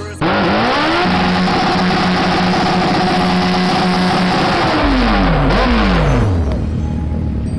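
Sportbike engine revved hard through a burnout, the rear tyre spinning against the pavement. The revs climb in the first second, hold high and steady for about four seconds over a loud hiss, then drop away.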